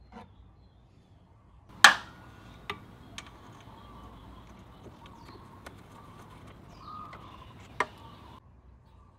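A sharp metallic clack about two seconds in, a few lighter clicks, and a second clack near the end, from a 12 mm socket on an extension being fitted onto a nut under the scooter.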